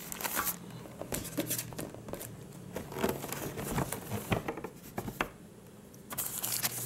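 Crinkling and rustling of plastic wrapping and paper being handled in a cardboard box, with small irregular clicks and scrapes. It goes quieter about five seconds in.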